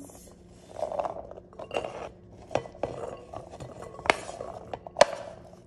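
Chickpeas sliding and tumbling from a ceramic bowl into a glass bowl as a wooden spatula scrapes them along, with three sharp knocks of the spatula against the bowls, the loudest about five seconds in.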